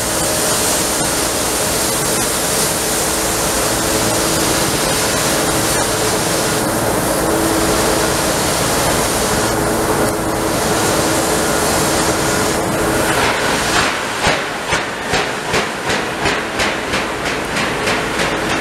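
Victorian Railways K class 2-8-0 steam locomotive hissing steam steadily, then, about two-thirds of the way in, setting off with exhaust chuffs about two a second that quicken slightly as it gets under way.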